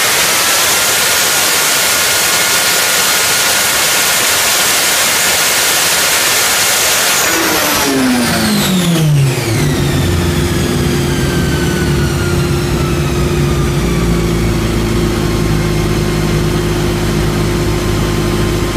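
MV Agusta Brutale 1090RR's inline-four held at full throttle near the top of its rev range on a chassis dyno, with the dB killer fitted. About seven seconds in the throttle closes, the revs drop away and the engine settles to a steady idle, while a high whine from the rear wheel and dyno roller slowly winds down.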